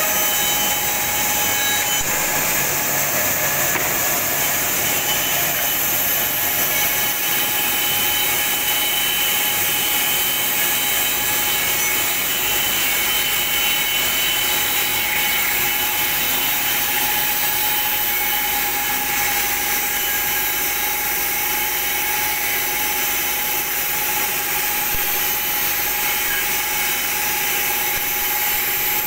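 WoodMaster WM-412 four-sided planer-moulder with four cutter heads running and planing boards: a steady loud machine noise of spinning cutters and motor, with a steady whine running through it.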